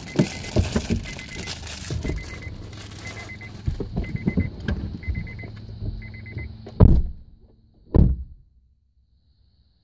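Car's door-open warning chime beeping in a steady repeating pattern while people shift and climb out of their seats, then two car doors shut with loud thumps about a second apart.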